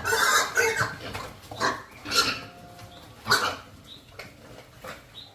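Several short animal calls, one after another at uneven spacing, the first ones the loudest.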